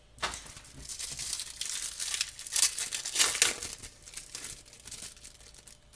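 A hockey trading-card pack wrapper being torn open and crinkled by hand, in a run of rustling that is loudest about halfway through and then dies away.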